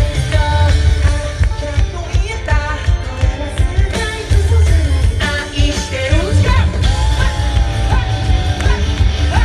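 Live pop-rock band playing through a stadium PA: male vocalists singing over drums, bass and guitar.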